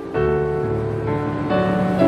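Slow, gentle piano music over a steady wash of ocean waves, with new chords struck near the start and again about a second and a half in.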